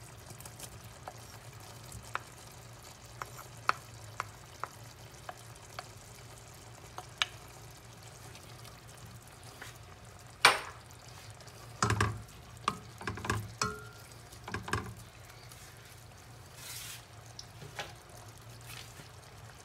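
Wooden spoon scraping smoked-fish flakes off a ceramic plate into a pot and stirring them into simmering sauce, with scattered clicks and knocks of the spoon against the plate and the metal pot. The loudest knock comes about halfway through, followed by a cluster of knocks, over a faint simmer.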